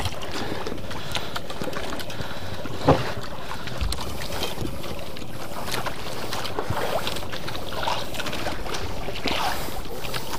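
Steady wind and sea noise on an open outrigger boat, with a few sharp knocks, the loudest about three seconds in.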